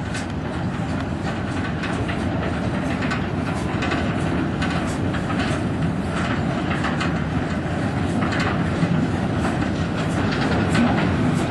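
Long train of steel narrow-gauge tipping skip wagons clattering and clanking over the rails behind a small steam locomotive, with many sharp metallic clicks. It grows slightly louder as the train approaches.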